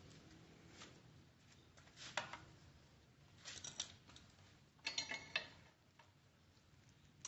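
Faint clicks and a short rattling clatter of hand tools and small metal parts being worked on a motorcycle during horn fitting: a click about two seconds in, a few more in the middle, and a busier clatter about five seconds in.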